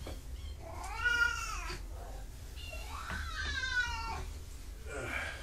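Kitten meowing three times: an arched meow about a second in, a longer drawn-out meow that falls in pitch, and a short one near the end.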